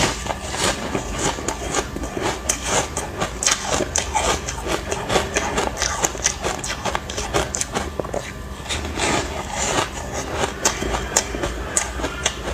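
Ice chunks coated in matcha powder being bitten and chewed, with a dense run of irregular crunches and cracks several times a second.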